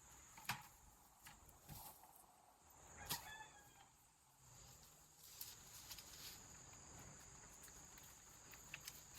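Near silence: faint outdoor background with a steady high-pitched whine and a few light clicks and knocks, the loudest about half a second and three seconds in.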